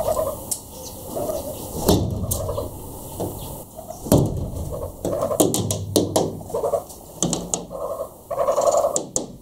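Hornbill fluttering against a glass window, its wings and bill striking the pane in irregular knocks, with short low calls in between.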